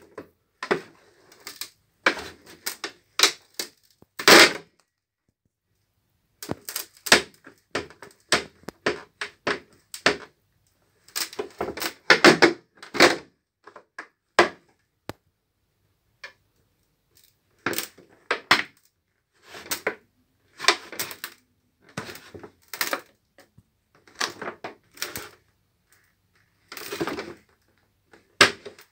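Boots stomping on foam and crushing it: sharp crackling crunches in quick bursts, with pauses of a second or two between the bursts.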